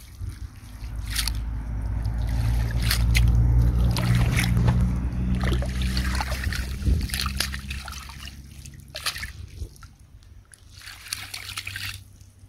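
Water splashing and sloshing as small caught fish are let go back into the water, with several sharp splashes. A heavy low rumble on the microphone swells through the middle and fades away by the end.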